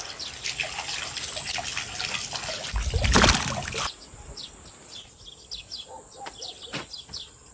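Small birds chirping, with a loud second-long rush of noise about three seconds in and a thin steady high tone through the second half.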